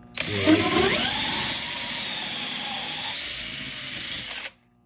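Cordless drill driving a hole saw through a ceiling tile. The motor's whine rises as it spins up, holds steady for about four seconds, then cuts off suddenly.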